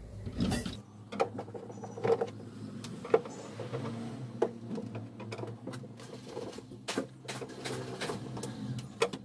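Scattered clicks and knocks of a screwdriver and hands on the plastic back cover of a CRT television as its screws are taken out, over a low steady hum.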